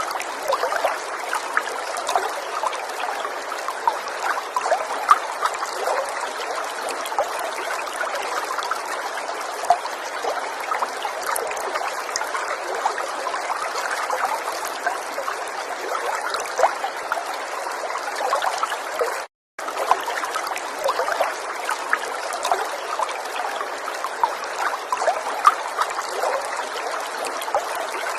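River water flowing steadily, with many small splashes. The sound cuts out completely for a split second about two-thirds of the way through.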